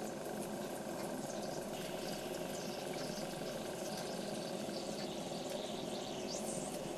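Philcraft Penny Engine, a tiny toy engine fed through a hose, hissing with a rapid fluttering chatter as its flywheel is turned by hand. Near the end it is let go.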